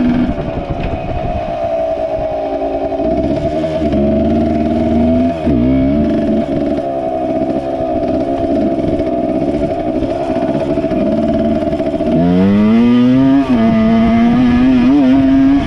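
MX 100 dirt bike engine running hard at high revs, its pitch dipping and climbing again about five seconds in as it shifts. It climbs again and gets louder from about twelve seconds in, with another short dip soon after.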